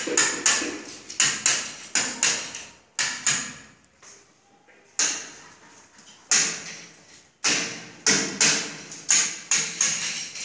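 Hammer blows on a metal chisel, chipping at the rough concrete edge of a wall opening: sharp, ringing strikes about two or three a second in runs, with short pauses between runs.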